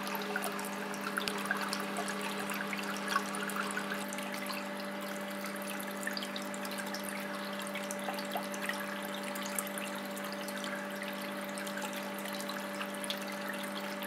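Small paludarium waterfall trickling and splashing into its pool, with fine drips, over the steady low hum of the water pump that drives it.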